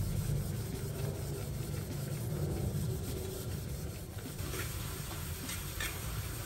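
Steel wool scrubbing an aluminium pan lathered with foaming detergent: a steady rasping rub, with a few sharper scrapes in the second half, over a low rumble.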